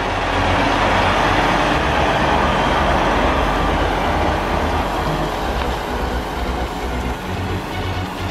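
Semi truck's diesel engine running and the tractor-trailer rolling as it manoeuvres to back the trailer in, a steady rumble with a noisy hiss over it, a little louder in the first half.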